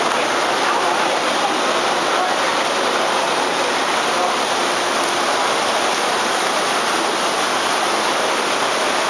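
Heavy rain pouring steadily, an even, unbroken hiss of water.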